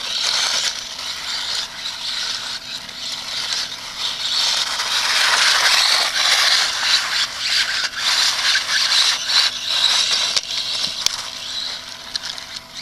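Team Associated RC18, a 1/18-scale electric RC car, sliding and spinning its tyres on gritty concrete: a rough, rasping scrape, loudest about halfway through as it passes close.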